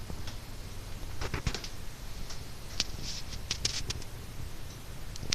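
Dead air in a TV broadcast between parts of an Emergency Alert System test: a steady low hum with a scattering of short soft clicks and crackles, mostly in the middle seconds.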